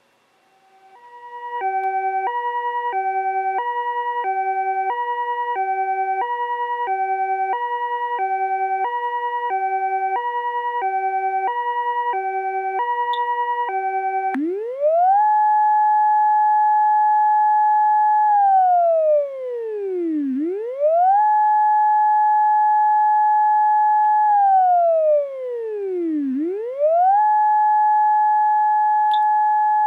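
Homemade PIC-microcontroller ambulance siren amplifier sounding. First a two-tone hi-lo siren alternating about every 0.8 s, the Japanese ambulance pattern. From about 14 seconds in comes the synthesized motor-siren wail, which rises slowly, holds its top pitch for a few seconds and slides back down, about every six seconds.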